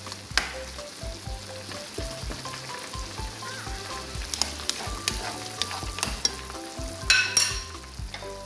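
Tomato-based chicken afritada sauce bubbling and sizzling in a pan over a gas flame, with a brief clatter about seven seconds in. Soft background music with a steady beat plays underneath.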